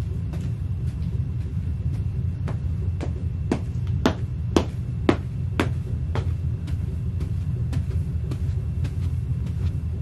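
Footsteps of sheepskin UGG boots stomping on carpet and a clear plastic chair mat, sharp thuds about two a second, a few louder near the middle. A steady low rumble runs underneath.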